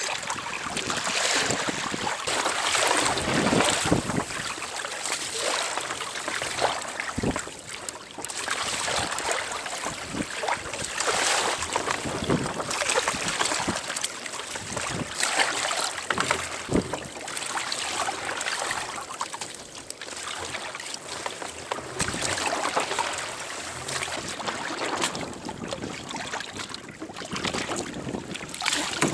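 Wind buffeting the microphone and choppy sea water splashing against a sailing kayak's hull, swelling and easing every few seconds, with a few brief knocks.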